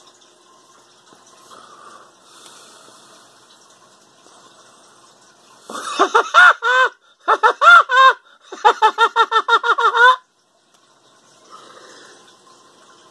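A high-pitched squealing laugh in three loud runs of quick rising-and-falling notes, the last run a fast string of about six notes a second, lasting about four seconds in the middle, over faint steady background hiss.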